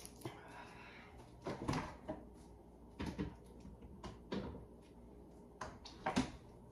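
About half a dozen separate knocks and thumps of someone moving about a kitchen: a bottle being put away and cupboard doors opening and shutting.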